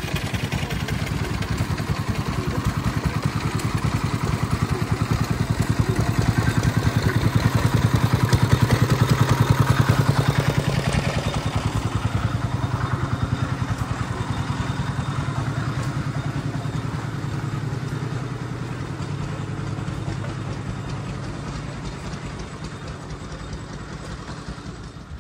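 Heritage diesel train engine running with a fast, even pulse, growing louder up to about ten seconds in and then slowly easing off.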